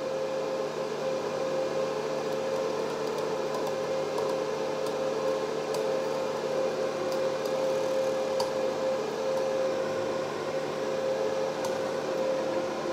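Wire-feed motor of a Multipro MIG welder running steadily at low speed with the torch trigger held, pushing welding wire through the torch cable: an even hum with a constant tone.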